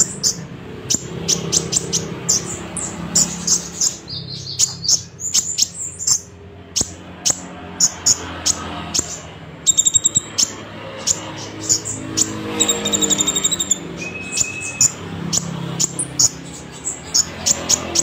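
Caged konin songbird singing: a long string of short, high chirps broken by rapid buzzy trills, with a brief level whistled note a little past the middle.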